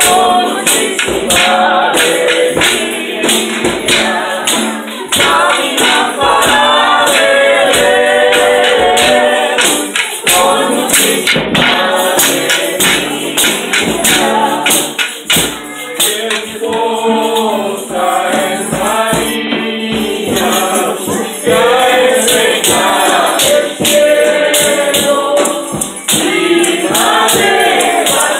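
A group of adults and children singing a Christmas posada song together, with hand percussion keeping a steady beat.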